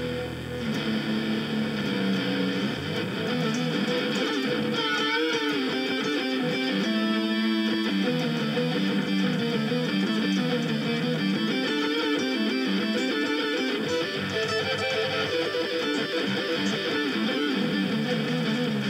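Electric guitar played through a Harley Benton DNAfx GiT multi-effects processor preset: a continuous line of changing notes and chords, some held and wavering in pitch.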